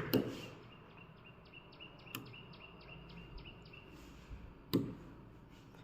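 Faint background with a run of short, high, evenly spaced chirps, about four a second, and a sharp click about two seconds in.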